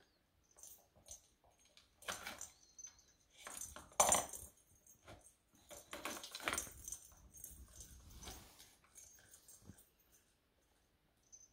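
Plastic ball-track cat toy rattling as a kitten paws at it: the ball rolls and clatters around the track in irregular clicks and knocks, the loudest about four seconds in.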